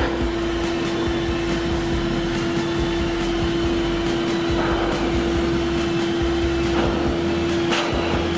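AIIYME groomer-style pet blow dryer running steadily, a constant rush of air from its hose nozzle over a steady motor whine.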